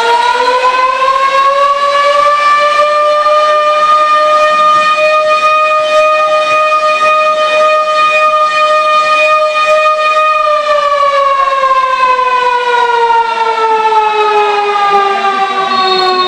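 Siren wailing for a goal. Its pitch rises over the first couple of seconds, holds steady, then from about ten seconds in slowly falls as it winds down.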